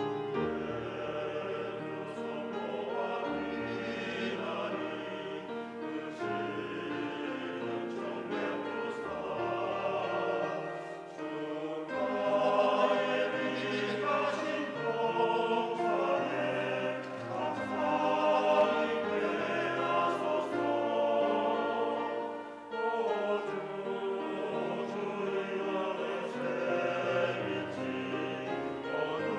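Church choir singing a hymn in several voice parts, in long held phrases, with two short breaks between phrases about eleven and twenty-two seconds in.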